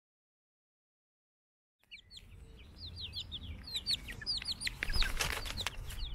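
Silence for about the first two seconds, then young chicks peeping: many quick, high, falling cheeps one after another over a low rumble.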